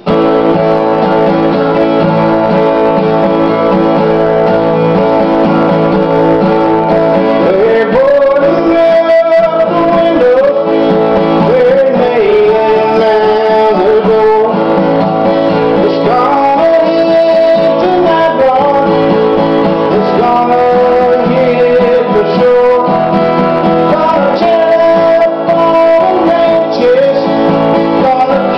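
Acoustic guitar strummed steadily, with a harmonica in a neck rack playing a melody over it with bent notes: a guitar-and-harmonica instrumental.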